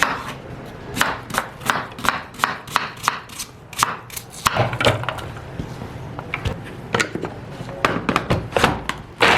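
Knife chopping a medium onion into coarse pieces on a cutting board: a run of sharp, irregular knocks, a few a second.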